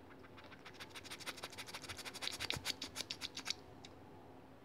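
Abyssinian kitten licking its fur while grooming: a quick run of rasping clicks that grows louder and stops abruptly about three and a half seconds in.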